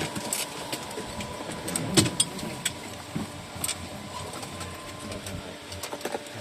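An engine running steadily, with a thin high tone over the hum and scattered clicks and knocks.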